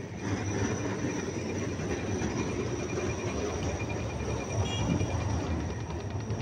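Street traffic noise: a steady low rumble of vehicles and trams at a city tram crossing, with a short high ring about four and a half seconds in.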